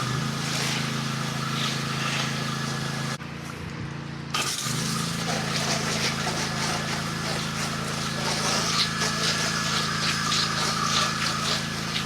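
Pressure washer running steadily, its engine and pump humming under the hiss of the water spraying from the wand. The spray cuts out about three seconds in for roughly a second, then resumes.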